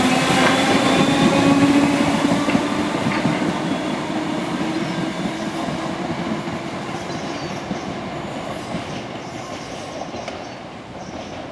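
Merseyrail PEP-family electric multiple unit running along the track: a motor whine and wheel rumble that fade steadily as the train draws away.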